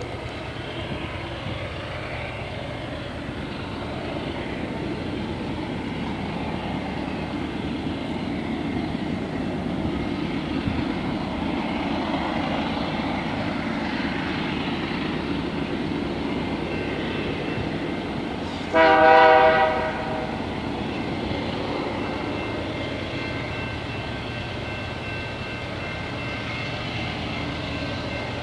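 One short, loud blast of a diesel locomotive horn from the approaching BNSF train, about two-thirds of the way through, over a steady low rumble. Faint steady high tones carry on near the end.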